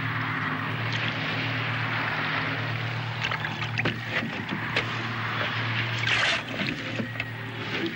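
Water splashing and washing against a boat, with scattered light knocks over a steady low hum; a louder splash comes about six seconds in.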